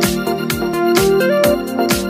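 Electronic background music: a keyboard melody over a steady beat.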